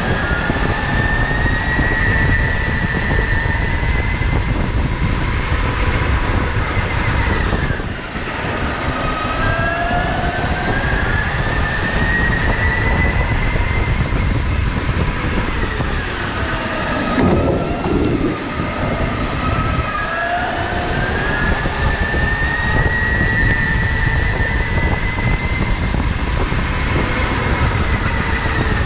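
Electric go-kart motor whining over the rumble of tyres and chassis on the track. The whine climbs in pitch as the kart accelerates and drops sharply about eight seconds in and again around seventeen seconds, when the kart slows for corners.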